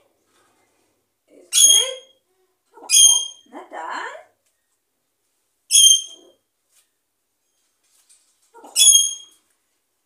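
Pet parrot calling four times, each a short, sharp, high whistle-like note mixed with lower voice-like sounds: the bird mimicking "good night" in Norwegian.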